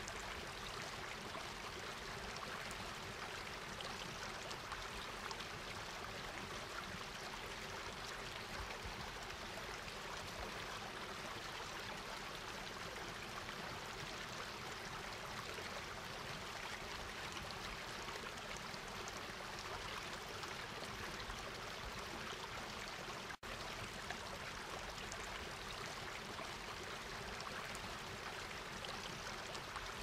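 Steady, even rushing noise with no distinct events, cutting out for a split second about three quarters of the way through.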